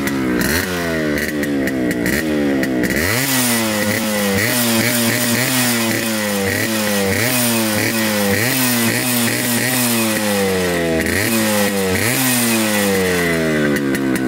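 Yamaha RX100's 100cc two-stroke single being revved while stationary: repeated quick throttle blips, each a sharp rise in pitch and a slower fall, a little more than one a second.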